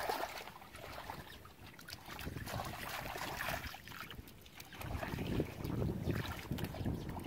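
Wet mud and shallow muddy water squelching and splashing as someone wades and gropes in it by hand, with wind rumbling on the microphone.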